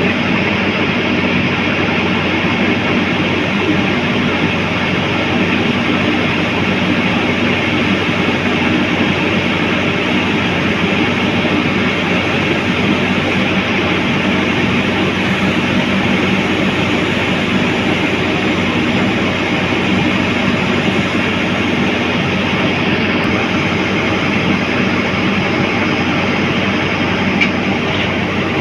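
Heavy earthmoving machine's diesel engine running steadily at high revs, loud and unbroken.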